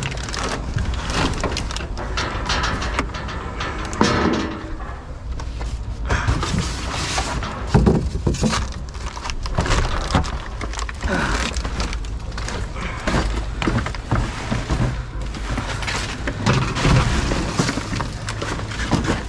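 Debris shifting and knocking inside a metal dumpster as someone climbs in and rummages through the trash: repeated thuds, clatters and scraping, with a louder knock about four seconds in and another near eight seconds.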